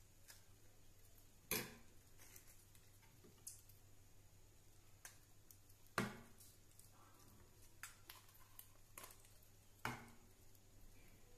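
Quiet scooping of curd with a steel spoon from a steel bowl: sparse light clicks of metal on metal, with three sharper clinks spread evenly through, the last near the end.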